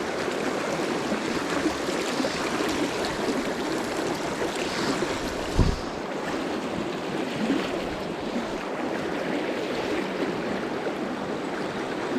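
River water rushing steadily. A brief low thump comes about halfway through.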